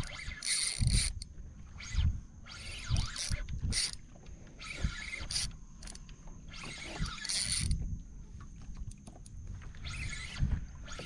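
Fishing reel whirring in about five short bursts as a hooked fish is reeled in, with scattered low knocks between them.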